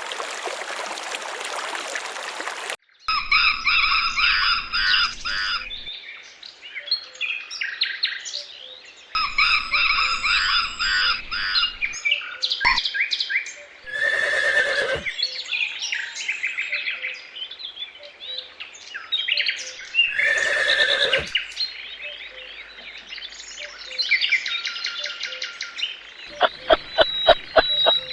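Birds chirping and calling in a string of short bursts, after about three seconds of a steady rushing hiss that cuts off sharply. Near the end comes a fast run of clicks.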